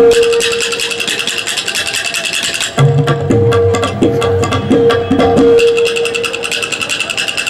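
Kartal and tabla playing a fast duet. The kartal's wooden clappers clack rapidly over the tabla's ringing right-hand drum. About three seconds in, the tabla's bass drum comes in with gliding strokes, and the rapid kartal clacking comes to the fore again near the end.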